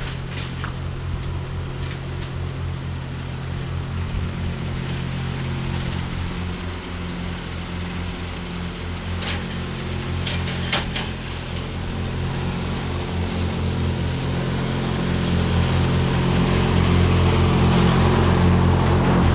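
Ride-on lawn mower's engine running steadily under cutting load, getting louder near the end as the mower comes close.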